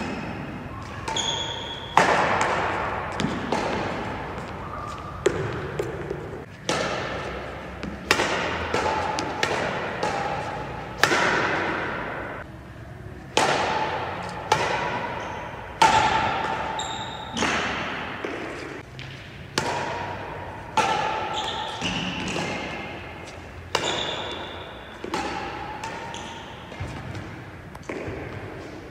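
Badminton rally: rackets striking a shuttlecock about every second and a half, each hit echoing through the hall, with shoes squeaking on the court floor. The hits stop a little before the end.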